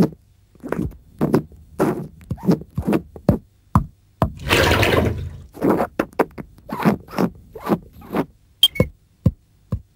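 Cartoon sound effects: a quick run of short scraping swishes and knocks, in keeping with a paintbrush stroking a painted backdrop, with a longer noisy stretch about four seconds in.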